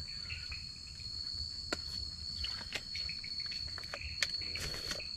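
Steady high-pitched drone of night insects in the jungle, unbroken, with a few sharp clicks of a plastic water bottle being handled.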